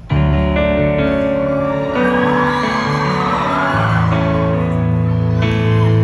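Live band coming in loudly on sustained chords over a bass line, an instrumental break in a pop-rock song. Audience cheering and whooping swells about two seconds in and fades out about two seconds later.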